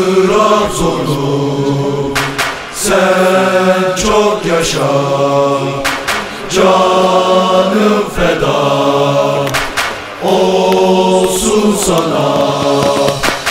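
Choral chant: voices singing slow, long-held notes in phrases of a few seconds each.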